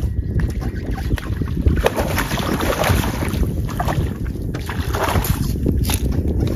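Wind buffeting the microphone: a steady low rumble, with a couple of brief hissing gusts.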